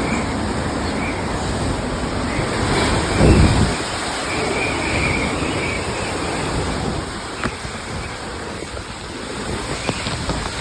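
Strong wind from an approaching typhoon blowing and buffeting the microphone, with a heavy gust about three seconds in.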